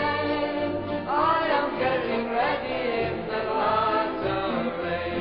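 Gospel song: voices singing held, gliding notes over a steady musical accompaniment.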